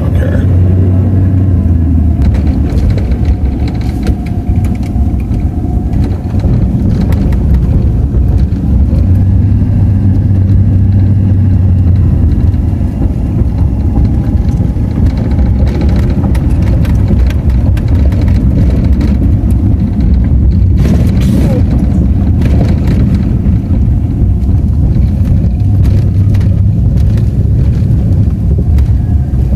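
Car driving, heard from inside the cabin: a steady low rumble of engine and tyre noise, with a few brief bumps along the way.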